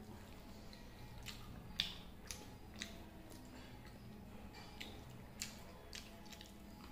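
A person eating masala dosa by hand from a steel plate: quiet chewing and wet mouth smacks, with a few sharp clicks, the loudest just under two seconds in.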